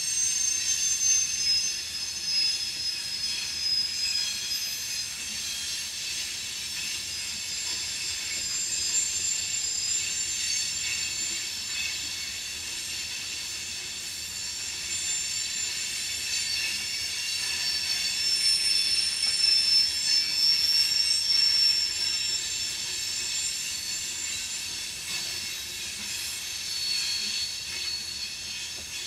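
Loaded rock cars of a freight train rolling through a curve, their wheel flanges squealing in several shifting high pitches over a low rolling rumble. The squeal is loudest about two-thirds of the way in.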